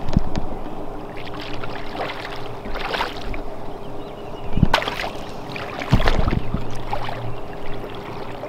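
Bow-mounted electric trolling motor running with a steady hum, over wind and water noise, with a few short knocks, the strongest about halfway and three-quarters through.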